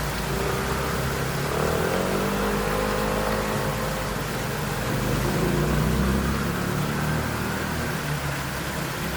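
Steady rush of a small waterfall, with a motor scooter's engine passing by for several seconds in the middle.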